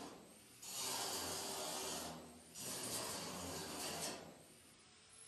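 Handheld angle grinder grinding paint off the steel of a smoker door down to bare metal, ready for welding. The disc bites in two passes of about a second and a half each, easing off between them and again near the end.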